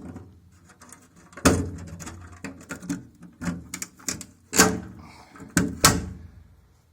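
A string of sharp knocks and clunks, several over a few seconds, the loudest about a second and a half in and again about two-thirds of the way through.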